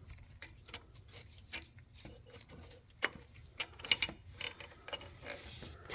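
Socket ratchet clicking in short runs with sharp metal clinks, as a bolt on a car's power steering pump is worked loose; the loudest clinks come about three to four seconds in.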